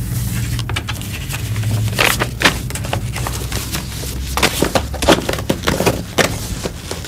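Irregular clicks and rustles over a low steady hum; the hum fades about four and a half seconds in.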